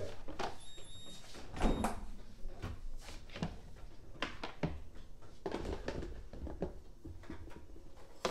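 Kitchen clatter: scattered knocks and clinks of a drawer and utensils being handled as a spoon is fetched, the loudest knock about two seconds in.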